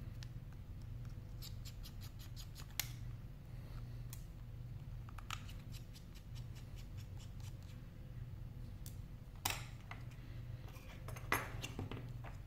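Small clicks and light scraping as a cracked iPhone 5 and a precision screwdriver are handled on a rubber work mat, with the screwdriver working at the phone's bottom screws. A quick run of ticks comes about two seconds in, and sharper clicks come near ten and eleven seconds in, over a low steady hum.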